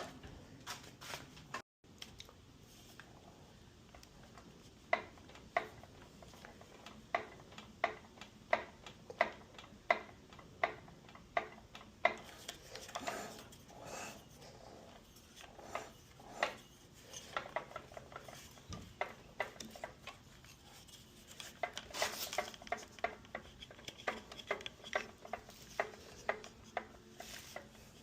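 Light metallic clinks and taps, sharp and short, coming unevenly about one or two a second.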